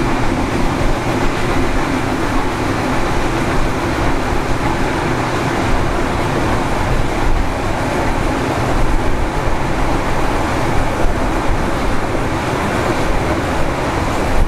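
Passenger train carriage in motion, heard on board: a steady, loud running rumble of wheels on rails.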